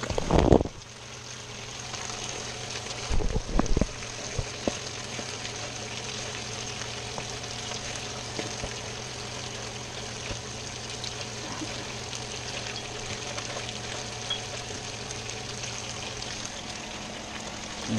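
Breaded fish pieces and sliced potatoes frying in hot olive oil in two pans, a steady sizzle with a low hum beneath it. A few short knocks come about three to four seconds in.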